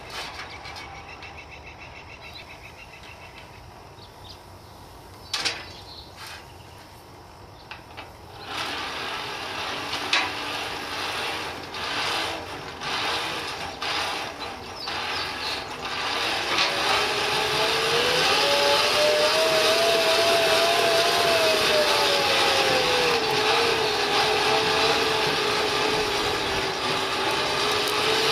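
Coal forge fire being blown hard by its blower: a rush of air that builds and then holds steady, with the blower's whine rising and falling in pitch as its speed changes. A few light knocks come in the quieter first part.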